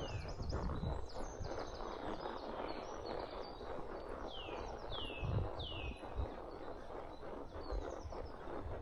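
Songbirds singing, with trills and three downward-sliding whistles about halfway through, over the soft, uneven thuds of a horse's hooves on a forest trail and a steady rustling background.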